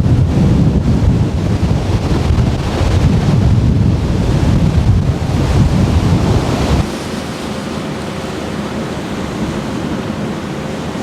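Typhoon storm noise: strong wind buffeting the microphone over a steady rushing roar. About seven seconds in it drops to a quieter, even rush.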